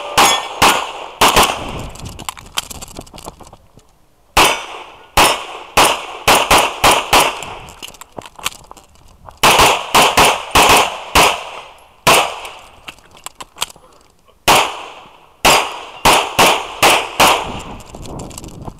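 1911-style single-stack pistol firing a course of fire: quick pairs and runs of shots, several a second, broken by pauses of about a second while the shooter moves between positions.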